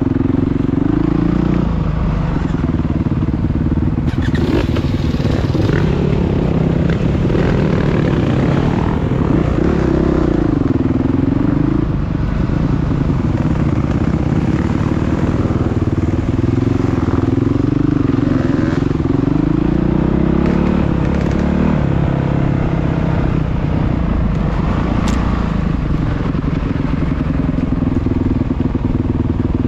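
Motocross motorcycle engines racing, repeatedly revving up and dropping back as the bikes accelerate and shift.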